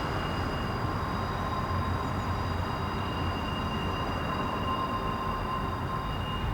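Green Cargo freight train moving, with a steady low rumble and several thin, high-pitched whining tones held over it.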